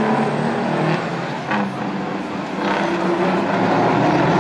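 Big-rig semi-truck race cabs' diesel engines running together on a dirt oval: a steady engine drone that dips in level about a second in, then comes back up.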